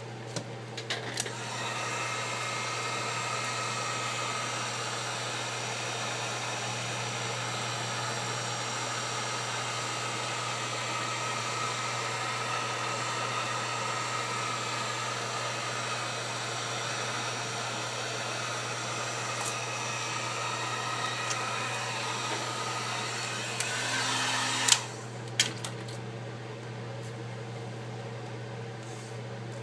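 Heat gun blowing steadily, a fan-driven hiss with a faint whine, switched on with clicks near the start and switched off with a sharp click a few seconds before the end, softening the adhesive under the iPad's cracked digitizer glass.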